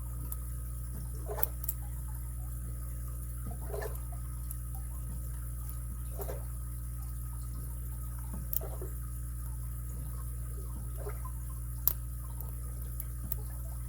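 A few sharp, faint metallic clicks from lock picks working the pins of a padlock, over a steady low hum.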